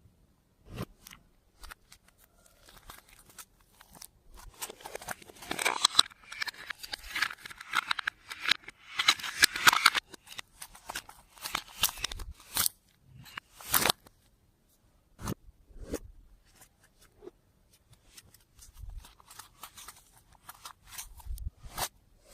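Clear slime being worked by hand with makeup mixed in: a run of sharp sticky clicks and pops, with longer crackling, squelching stretches about five and nine seconds in.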